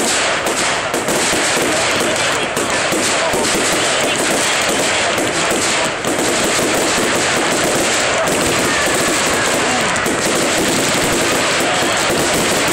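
Fireworks display at full barrage: a loud, continuous rapid crackling and popping of many shells and crackers going off at once, with no let-up.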